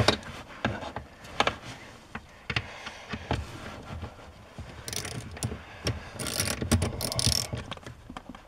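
Ratchet and extension clicking in short runs as a mounting bolt on a pickup's accelerator pedal sensor assembly is driven in, mixed with scattered knocks and scrapes of the tool. There is a quick run of clicks past the middle and a longer, denser one near the end.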